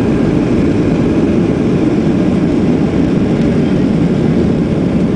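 Cabin noise of a Boeing 737-700 on its takeoff roll: its CFM56 jet engines at takeoff thrust, heard through the fuselage as a steady, loud, deep rumble.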